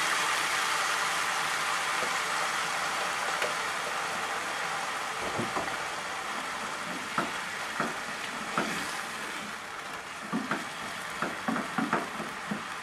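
White wine sizzling as it hits a hot frying pan of sautéed vegetables, chicken and beans; the hiss is strongest at first and dies down gradually. From about halfway, a wooden spatula stirs and knocks against the pan, most often near the end.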